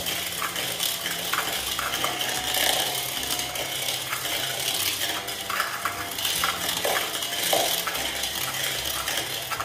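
Electric hand mixer running steadily on its lowest speed, its beaters clattering and scraping in the bowl as they cream butter and sugar.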